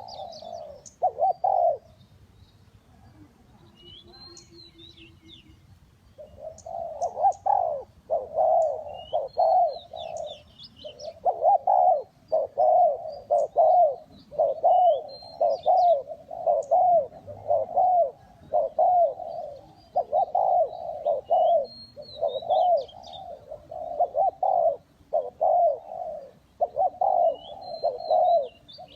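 Spotted dove cooing over and over: a couple of coos at the start, then after a pause of a few seconds a long, near-continuous run of coos. Small birds chirp faintly in high notes in between.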